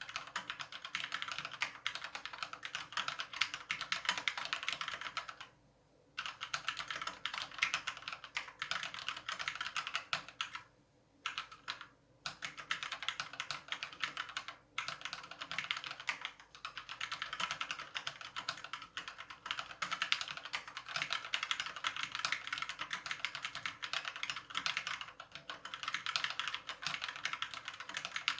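Fast, continuous typing on a COX CK87 mechanical keyboard with stock Gateron Yellow linear switches, which need a weight of press between red and black switches. The keys clack in quick runs, with two short pauses, the first about five seconds in and the second around eleven seconds in. The board has factory dampening foam and factory-lubed stabilizers, so there is no hollow case ping.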